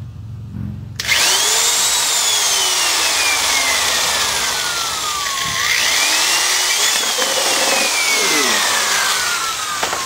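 Corded electric drill boring a hole through the bottom of an aluminium drink can, starting about a second in. The bit grinds through the metal while the motor's pitch climbs and then slowly sinks, twice.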